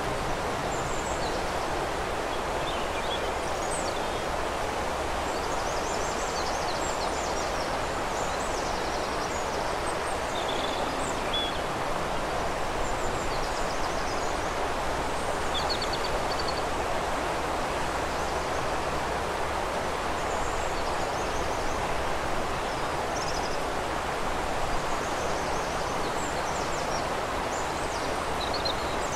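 A river flowing with a steady rush of water, and small birds singing on and off over it in many short, high chirps and trills.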